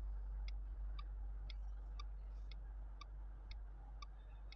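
Clock ticking steadily, about two ticks a second, alternating tick and tock with every other tick a little lower.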